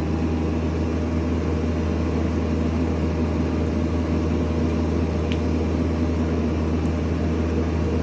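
Mini-excavator engine running steadily with a low, even hum.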